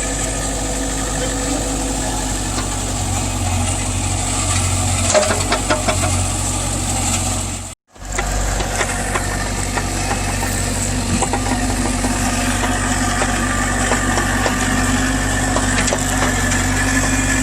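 Mini excavator's diesel engine running steadily while it works, with a cluster of clanks about five to six seconds in. The sound drops out for a moment just before eight seconds, then the engine carries on with occasional light clicks.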